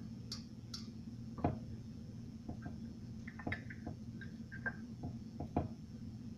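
Chunks of raw vegetables being placed by hand into a metal Bundt pan: scattered light knocks and taps, the loudest about one and a half seconds in, over a steady low hum.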